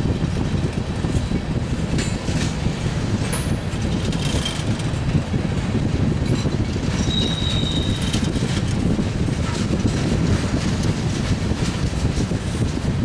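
Freight cars of a Norfolk Southern mixed freight train rolling past in a steady rumble, with wheel clicks over the rail joints and a brief high wheel squeal about seven seconds in.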